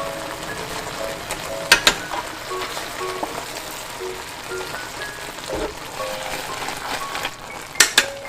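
Food sizzling in a frying pan under light background music playing a simple melody. Two sharp double clicks stand out, about two seconds in and near the end.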